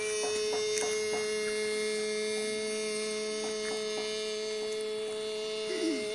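A steady, unwavering pitched hum with overtones, with a few faint clicks in the first second or so.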